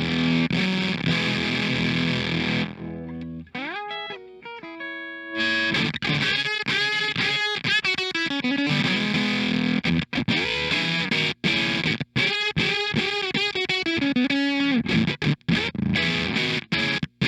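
Electric guitar, a Squier '70s Classic Vibe Starcaster, played through a fuzz pedal. A held, distorted chord gives way about three seconds in to a quieter run of rising single notes, then a fast, gritty riff with short, choppy stops.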